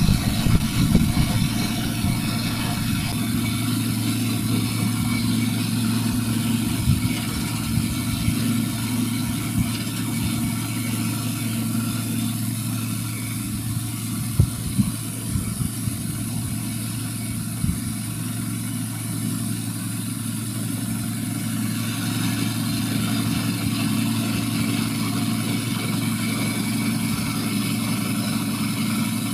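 Truck-mounted mobile diesel dispenser running steadily with a low engine-and-pump hum while it pumps diesel out through its hose, with a few brief knocks.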